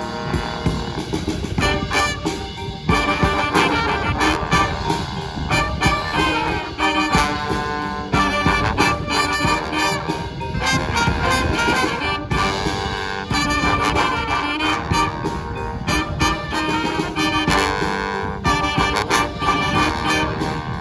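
Brass band playing live: trumpets and trombones in harmony over a steady drum beat.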